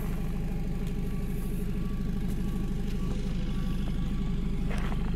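BMW 320i xDrive's 2.0-litre four-cylinder engine idling steadily, an even low hum with no change in speed.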